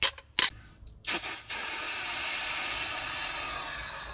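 A couple of sharp clicks, then a short spray followed by one steady spray hiss lasting about two and a half seconds, fading near the end.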